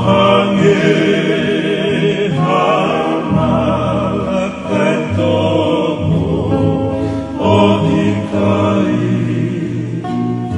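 Music: a song with singing voices, held notes with vibrato, over instrumental backing with a steady bass line.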